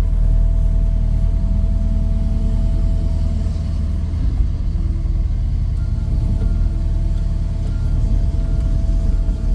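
Tractor engine running steadily, with a deep rumble and a steady whine while the bucket works the dirt. Short faint beeps repeat at an even pace in the second half.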